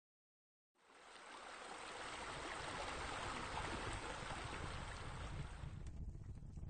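Running water splashing from a stone-clad pool water feature. It fades in about a second in and holds steady, then the splashing drops away near the end, leaving a low rumble.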